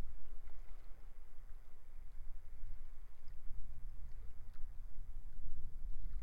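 Sea waves washing against the shore, with strong wind buffeting the microphone in a low, gusting rumble that is the loudest part.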